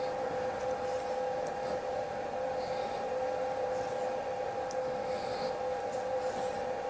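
Faint scraping of a brand-new M12 x 1.25 tap being turned by hand in a tap wrench, cutting a thread into a metal crosshead, with a few light ticks. A steady two-note hum of a running machine is louder underneath.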